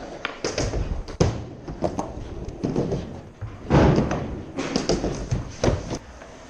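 Skateboard rolling on ramps with repeated clacks and thuds of the board hitting and landing, the loudest thud a little past halfway.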